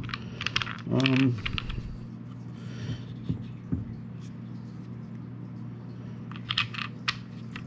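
Light plastic clicks and taps as a metal detector's lower shaft is worked into the search coil's mounting yoke by hand: a cluster of clicks in the first second or so and another near the end.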